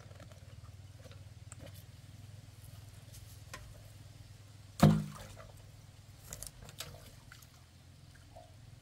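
Water dripping and splashing over a low steady motor hum. About five seconds in there is one loud thud with a short low ring, and a few sharper knocks follow a second or two later.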